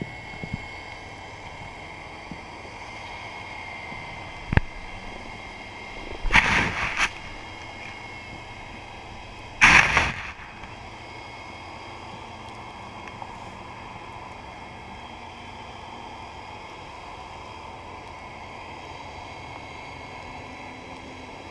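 Underwater sound picked up by a camera in a waterproof housing: a steady hum with faint high whining tones, a sharp click about four and a half seconds in, and two loud rushing bursts, about a second each, around six and ten seconds in.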